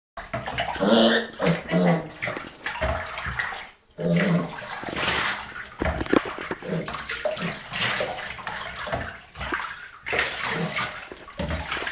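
Shallow bathwater in a bathtub splashing and sloshing as a piglet is washed by hand, the splashing coming and going unevenly.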